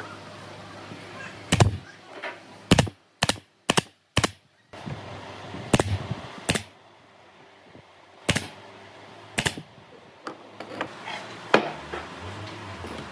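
Pneumatic brad nailer firing brads into the corner joints of a solid-wood box: a string of sharp, separate shots, about ten in all, at irregular gaps of half a second to two seconds.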